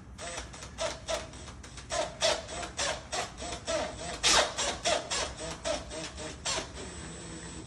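A hand tool rasping or sawing at the wood of a door in quick back-and-forth strokes, about four a second, as the opening for a mortise lock is worked. The strokes stop about a second before the end.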